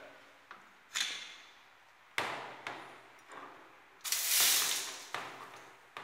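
Handheld bidet sprayer (bum gun) squeezed in several short bursts of spraying water. The longest burst, about a second, comes a little past the middle.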